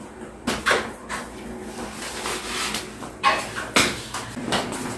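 Household handling noises: several short knocks and clatters, the loudest a little past three seconds in.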